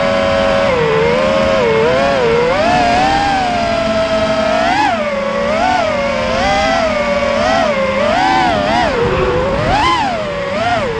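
FPV racing quadcopter's motors whining, the pitch swinging up and down about once a second as the throttle is worked.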